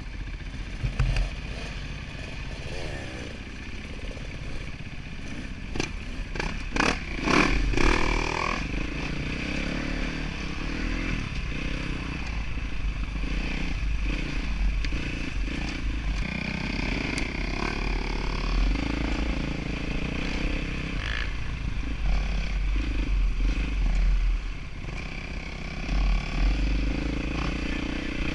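Dirt bike engine running and revving up and down as it rides a rough trail, heard from on the bike. A cluster of rattling knocks comes about six to eight seconds in.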